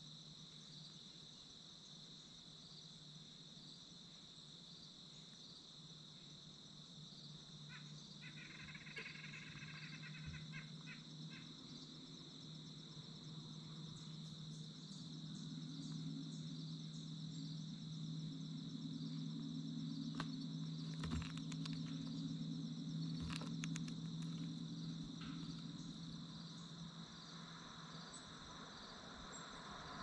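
Steady high insect trilling, with a short series of chirps about eight seconds in and a few light clicks. A low hum grows louder through the middle and then fades.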